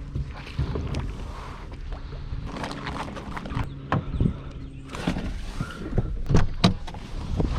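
Plastic kayaks moving through shallow water and being handled: a series of hollow knocks and scrapes against the hulls, with water splashing.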